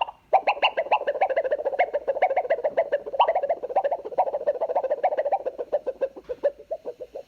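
Sound effect of a rapid pulsing warble, about ten pulses a second, starting abruptly and slowing a little toward the end.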